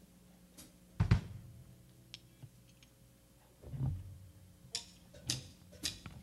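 Live band on stage just before a song: a low thump about a second in and another near four seconds, then four sharp clicks evenly spaced about half a second apart, a drummer's count-in, over a faint steady amplifier hum.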